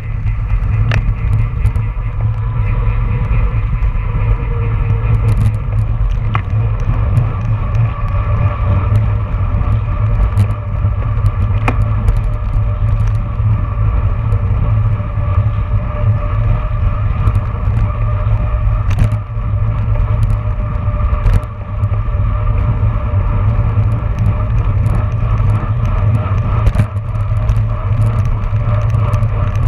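Wind buffeting and road rumble on a handlebar-mounted camera on a road bike moving at about 20–24 mph. A steady hum from the chain and tyres runs underneath, with scattered sharp clicks and rattles.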